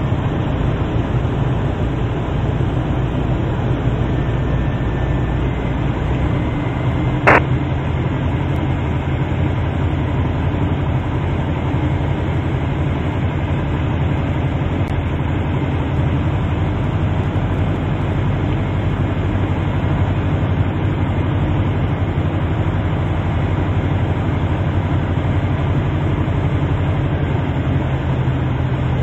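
Piper Super Cub's piston engine running steadily, with one sharp click about seven seconds in.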